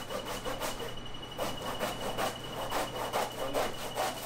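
Knife sawing through a giant bluefin-sized tuna: repeated rasping strokes, about three a second.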